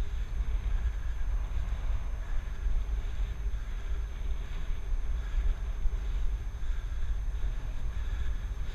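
Wind buffeting a helmet-mounted action camera's microphone while riding a bicycle: a steady, fluttering low rumble.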